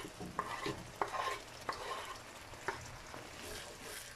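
Wooden spatula scraping and stirring tomato sauce in a hot frying pan, a handful of separate scrapes over a steady sizzle.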